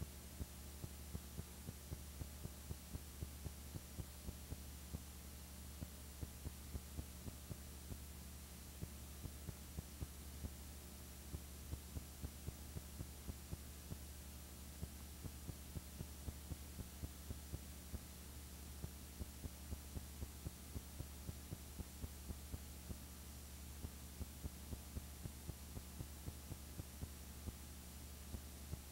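Steady low electrical hum with faint clicks about two or three times a second: the background noise of a silent home-movie film transfer, with no live sound.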